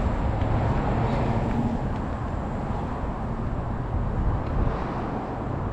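Steady low background rumble with a faint low hum, like outdoor traffic noise, and no distinct events.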